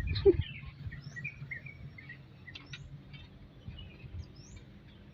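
Small birds chirping: short, high, upward-sliding notes scattered every second or so over quiet background noise.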